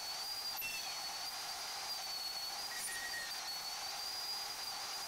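Portable band saw cutting a square steel tube, heard faintly as a steady hiss with a thin, slightly wavering high whistle from the blade and a few brief higher tones.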